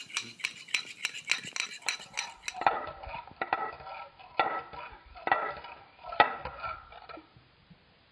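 Fork whisking a beaten egg in a ceramic bowl, its tines clinking against the bowl. Quick strokes at first, slowing after a couple of seconds to about one clink a second, then stopping shortly before the end.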